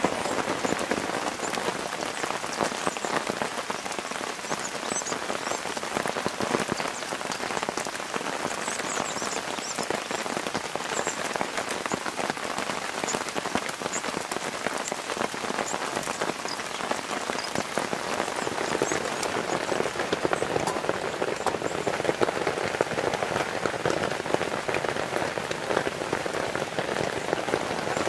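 Steady rain falling, with many small sharp drop hits.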